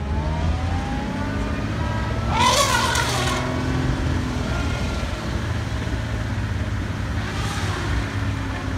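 Safari vehicle's engine running with a steady low hum. About two and a half seconds in, a loud, high call lasting about a second.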